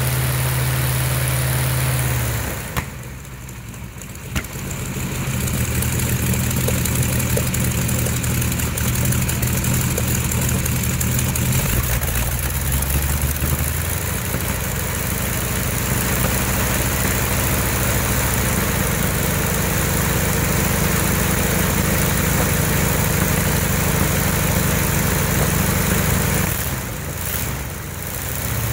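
Radial engine running on a test stand. It is throttled back to a low idle about two seconds in, with two sharp pops, then brought back up. Its speed shifts several times and it dips once more near the end.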